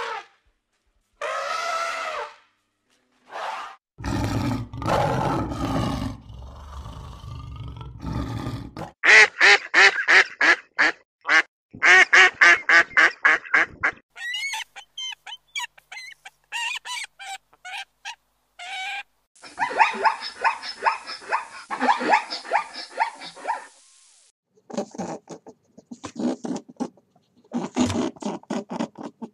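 A string of separate animal calls, one after another: a loud low roar a few seconds in, then fast runs of duck quacking, thin high chirps, and more bursts of calls toward the end.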